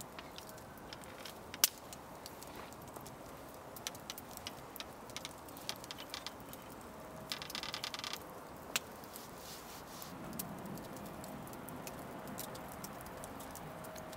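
Small wood campfire crackling, with sharp pops scattered throughout. A short rattling burst comes a little past halfway.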